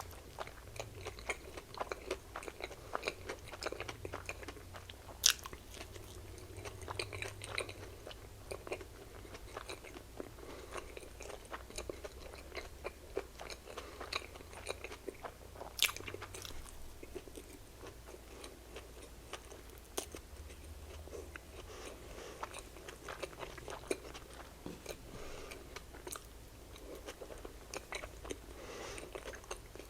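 Close-up mouth sounds of a person chewing and biting into small fast-food slider burgers: soft, wet chewing clicks and smacks, with a few sharper clicks about five, sixteen and twenty seconds in.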